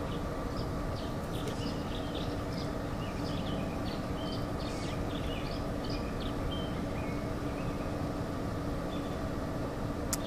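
Steady industrial machinery hum with several fixed tones, from the plant beside the river, with birds chirping over it again and again.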